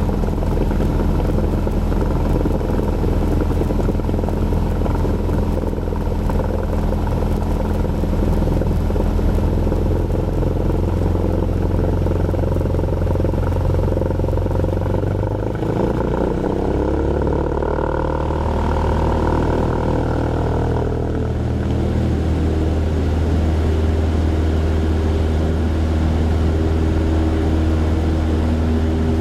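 Cessna 172's propeller engine running steadily at takeoff or climb power, a loud continuous drone. Its note shifts a little about halfway through.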